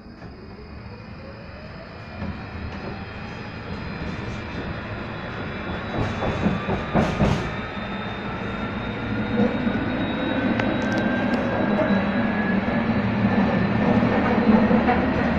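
Electric tram accelerating, heard from inside the car: the traction motor whine rises steadily in pitch over wheel-on-rail rumble that grows louder. A few short clattering knocks come about halfway through.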